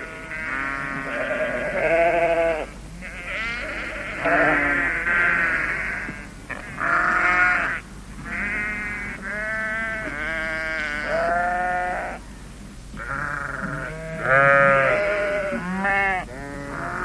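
Sheep bleating, many calls one after another and often overlapping, each a wavering, quavering cry, with only brief pauses between them.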